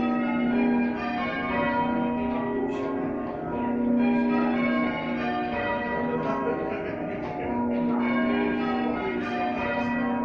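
Chale church's bells ringing, several bells struck one after another in quick succession, their tones overlapping, with a deep hum from the lowest bell that returns every few seconds.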